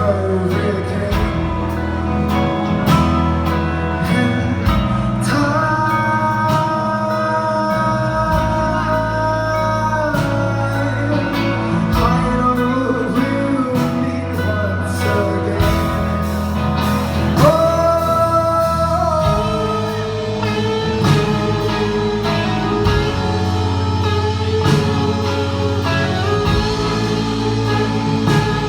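Live band performance: a man singing, holding long notes twice, over guitar and drums.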